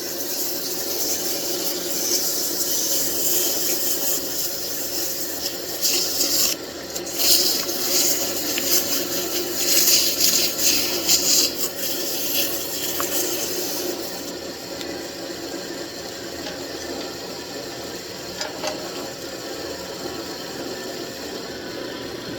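Wood lathe spinning a mahogany turning while it is sanded, a loud rubbing hiss of abrasive paper against the wood that swells unevenly in the middle and stops about fourteen seconds in, leaving the lathe running on its own.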